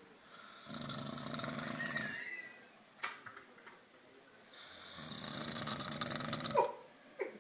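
Snoring: two long, fluttering snores about four seconds apart, each lasting about two seconds, with a couple of brief squeaks near the end.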